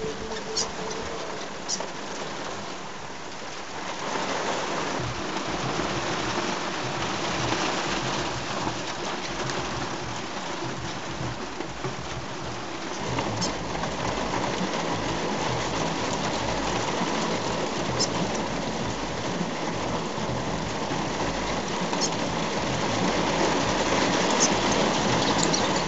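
Steady hiss of heavy wet snow falling and pattering on surfaces, growing a little louder from about four seconds in, with a few brief, faint high ticks.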